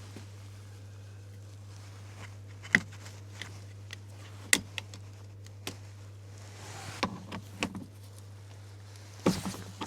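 Scattered sharp knocks and clicks of work inside a stripped-out car interior, a few seconds apart, over a steady low hum.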